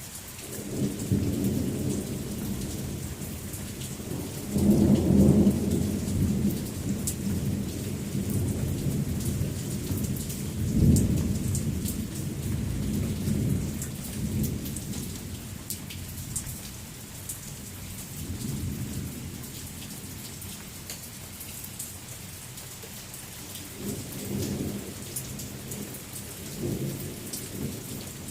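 Steady rain with patters and drips, and several rolls of thunder over it: the loudest rumbles come about five and eleven seconds in, with smaller ones at the start and near the end.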